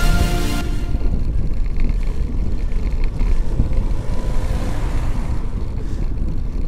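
Wind buffeting the microphone of a bicycle-mounted camera while riding: a dense, unpitched low rumble. It swells a little around the middle as a van passes.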